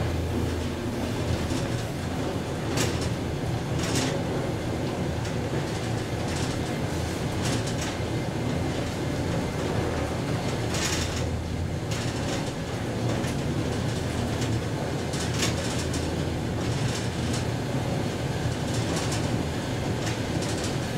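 1977 KONE inclined elevator car climbing its inclined track: a steady low running noise with scattered sharp clicks and clacks as it travels.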